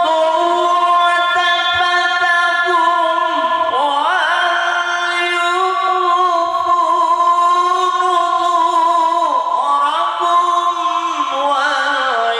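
A man's voice reciting the Quran in melodic tilawah style, drawing out one phrase as a long held melody with ornamented runs that rise in pitch about four seconds in and again near the end.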